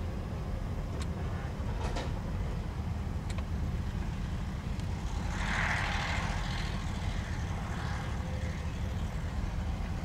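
Steady low rumble of diesel excavators and dump trucks working in a dirt pit, with a few sharp clicks in the first few seconds and a brief rushing noise about five to seven seconds in.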